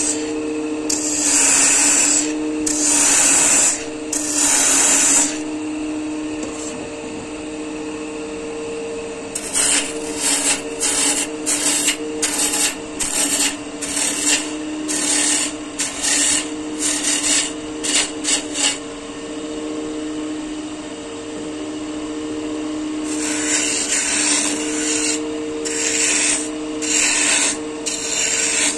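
Wood lathe running with a steady motor hum while a turning tool is worked against the spinning wood in repeated passes, each a burst of hiss. The first passes are longer; through the middle they come short and quick, about two a second, then a few longer ones again near the end.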